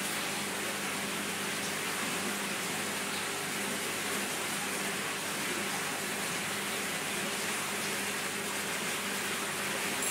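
Aquarium filtration running: a steady rushing hiss of moving water and air bubbles over a faint low hum from the pump.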